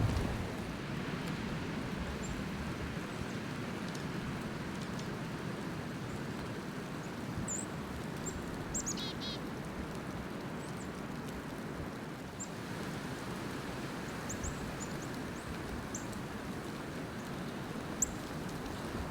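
Steady blizzard wind noise, with small birds giving a few short, high chirps scattered through it and a brief run of notes about nine seconds in.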